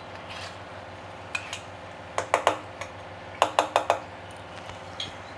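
Spoon clinking and scraping against a metal bowl while stirring a thick lentil batter: a few scattered taps, then quick runs of sharp clinks about two and three and a half seconds in.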